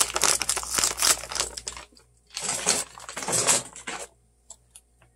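Plastic packaging crinkling and rustling in two bursts of a second or two each, followed by a few faint light clicks.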